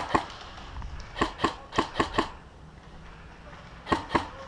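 Airsoft gun firing in quick semi-automatic shots, about four or five a second: one run of about five shots a little over a second in, and another run starting near the end.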